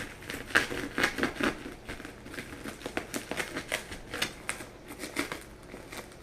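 Shipping package being opened by hand: a run of short, uneven crinkles and rustles of the packaging.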